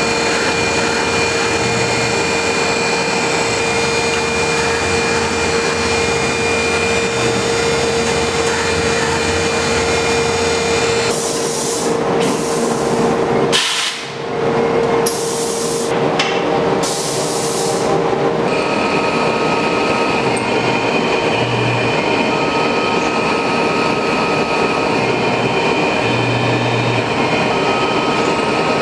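Tormach CNC mill running, its carbide tool drilling and profiling G10 fiberglass laminate, with a steady machine whine. Several short hissing bursts come around the middle, and after a brief dip the machine tone changes.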